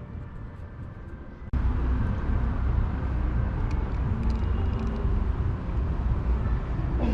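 Steady low outdoor rumble, like street traffic or wind on the microphone, which starts abruptly about a second and a half in after a quieter stretch.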